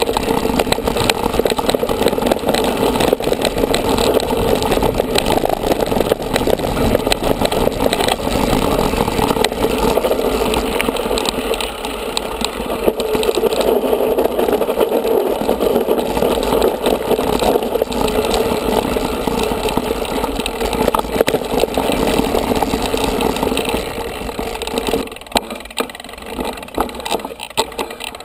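Mountain bike ride heard through an on-board action camera: a steady rolling rumble from the tyres on the dirt trail, with frequent clicks and rattles as the bike goes over bumps. It eases off for the last few seconds.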